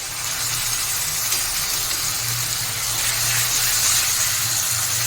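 Chopped onions frying in hot oil in a pan with ginger-garlic and masala paste just added, sizzling with a steady hiss that grows a little louder over the few seconds, a low hum underneath.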